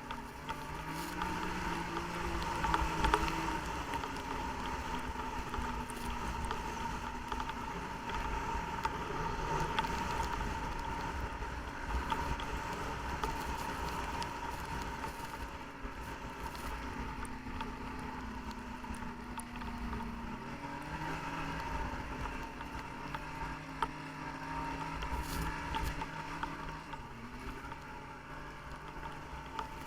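Snowmobile engine running under way, its pitch shifting up and down several times as the throttle changes, with a steady high whine and a constant rushing noise beneath it.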